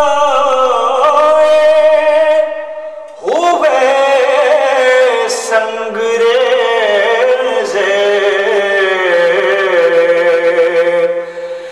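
A male voice singing an Urdu naat in long, held, wavering notes. About two and a half seconds in the voice breaks off, then it returns with an upward glide into a new phrase.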